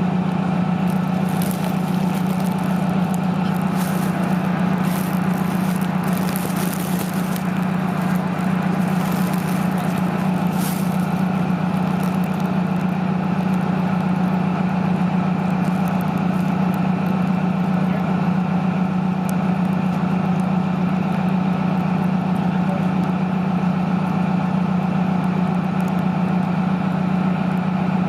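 Heavy vehicle engine running steadily at an unchanging speed, with short hisses and ticks over roughly the first ten seconds.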